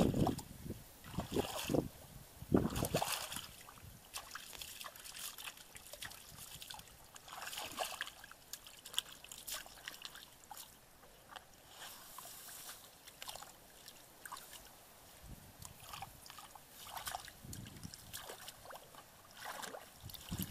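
Feet wading and squelching through shallow muddy water, then small splashes and trickles as hands work in the water and in a plastic basin of caught fish. The sounds are irregular, louder in the first few seconds and quieter and scattered after that.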